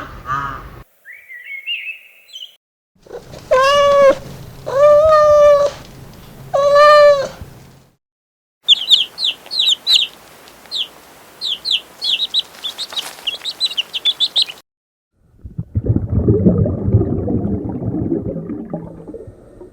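A run of different animal calls, one after another: three long, steady-pitched calls, then a quick series of high chirps like a small bird's, then low rough grunting.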